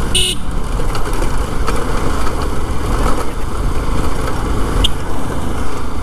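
Yamaha FZ motorcycle running steadily at cruising speed, engine drone mixed with road and wind rumble. A brief high chirp comes just after the start and a fainter one near the end.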